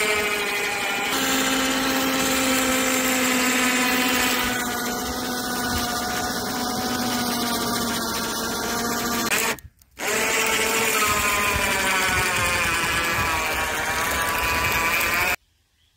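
Harbor Freight 2500 lb electric winch motor whining steadily as it reels in cable under load, hauling a deer carcass up out of a stream. It cuts out for a moment about ten seconds in, then runs again until it stops abruptly near the end.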